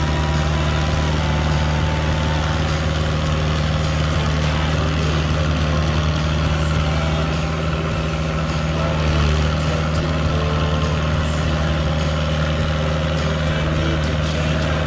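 Fiat 80-66DT tractor's diesel engine running steadily under load while ploughing a paddy field, with a slight swell about nine seconds in.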